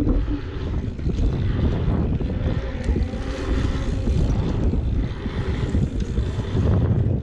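Wind buffeting the microphone over the low rumble of bicycle tyres rolling fast on an asphalt pump track, with a few sharp clicks from the bike.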